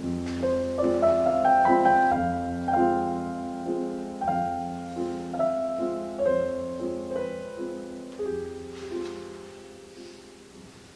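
Solo piano music: a slow line of single notes over held low notes, fading away toward the end.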